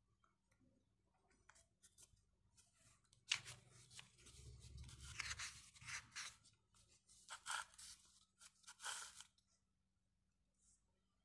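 Scratchy rustling and scraping of hands and paper close to the microphone, starting with a sharp knock about three seconds in and going on in several bursts until near the end.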